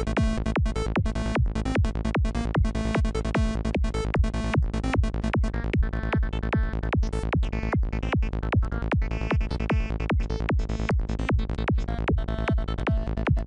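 Software synth patch in Native Instruments Massive, a single-oscillator lead through two filters in series, playing a repeating psytrance pattern of fast, evenly spaced notes at 150 BPM. Its upper tone shifts for a few seconds in the middle as the patch is adjusted.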